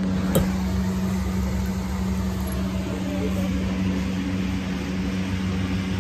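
Steady low motor hum with one constant tone, and a single sharp click about half a second in.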